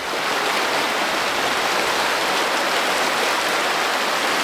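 River running high and fast with spring snowmelt runoff: a steady rushing of water.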